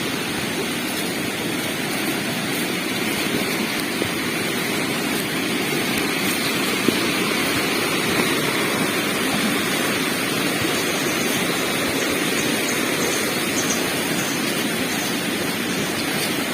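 Steady rush of falling water from a waterfall, with a few faint clicks.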